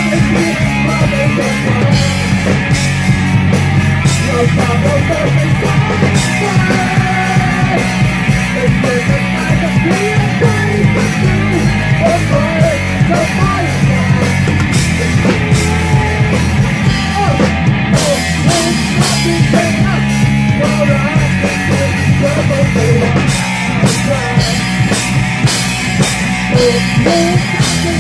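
Live rock band playing loud: drum kit and electric guitar, heard close from on stage, with frequent sharp drum and cymbal strokes.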